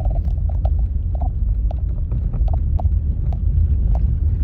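Car turn signal ticking at an even pace, heard inside the car over the low rumble of the car driving on a snow-covered road.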